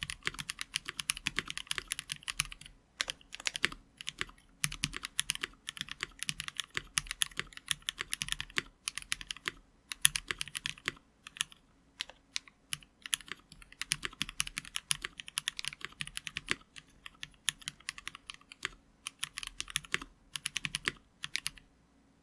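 Typing on a KBDFans Blade60 60% mechanical keyboard with lubed NovelKeys Cream linear switches, a brass plate and GMK keycaps. Quick runs of keystrokes break off for short pauses now and then, and the typing stops near the end.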